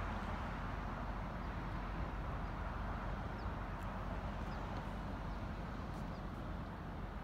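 Steady low rumble of a cargo ship passing on the river, with a few faint bird chirps.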